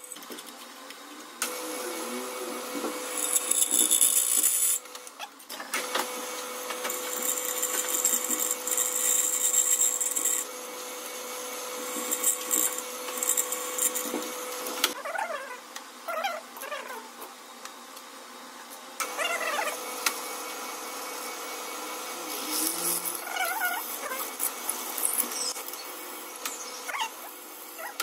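Bench drill press running with a steady motor hum, drilling out a broken top screw in a KTM triple clamp. The motor stops for a few seconds around the middle, then starts again.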